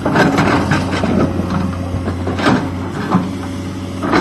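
Excavator's diesel engine running steadily under load while its bucket scrapes and knocks against rock and soil, with a few sharp knocks toward the end.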